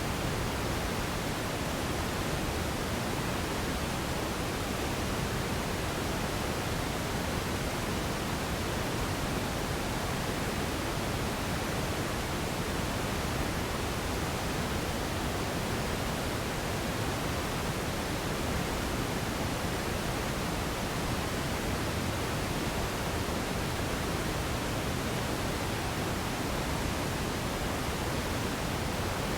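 Radio static: a steady, unbroken hiss, a little fuller in the low end, with no tones, clicks or voices in it.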